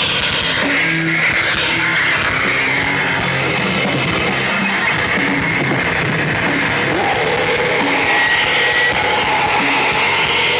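Post-hardcore band playing live, loud and dense, with distorted guitars and a drum kit.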